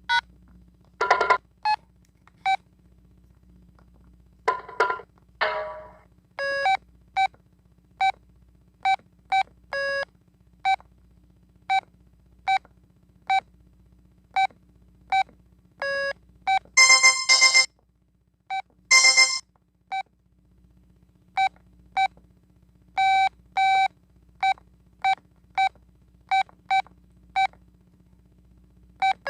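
Telit mobile phone playing a ringtone through its small speaker: a beeping melody of short single notes, one at a time, with two longer, buzzier notes a little past the middle.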